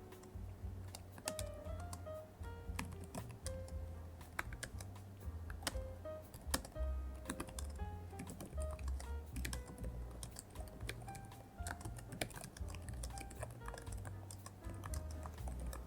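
Typing on a computer keyboard, a steady run of irregular key clicks, over soft background music with a bass line.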